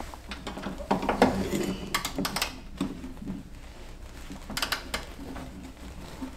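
Small ratchet wrench with a socket clicking in a few short runs as a bolt is turned by hand, with light metal knocks of the tool.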